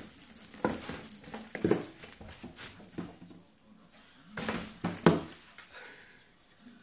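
A British Shorthair kitten scrabbling and jumping about in a cardboard box, claws scratching and paws knocking on the cardboard, with a few louder thumps spread through.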